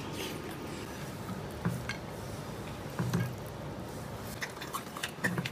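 Quiet eating sounds: chewing of saucy pork ribs, with scattered light clicks of wooden chopsticks against a ceramic dish.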